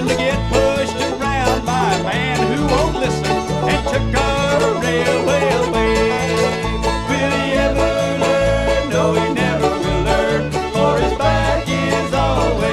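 Bluegrass band music: banjo picking over guitar and a walking bass line.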